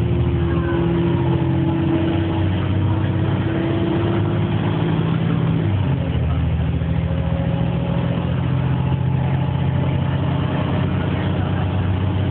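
Volvo B7LA articulated bus heard from inside the passenger cabin while under way: a steady diesel engine drone with a whine over it. The whine fades about five seconds in, and the engine note shifts about a second later.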